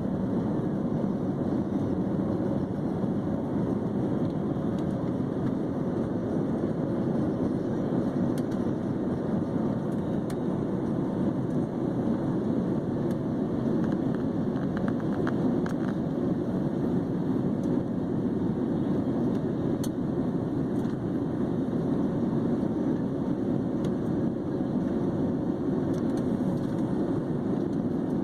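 Steady drone of a jet airliner heard inside the passenger cabin: engine and airflow noise that holds an even level throughout, with a few faint clicks about halfway through.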